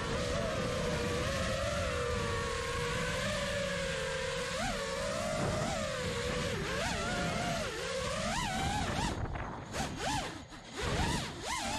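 Brushless motors and propellers of a 5-inch FPV freestyle quadcopter (Hyperlite 2207.5 2550 kV motors, Gemfan 5-inch props) whining, heard from the on-board GoPro with wind hiss. The pitch holds steady, then jumps up and down with quick throttle punches from about four seconds in, and drops out briefly around nine to ten seconds in as the throttle is cut.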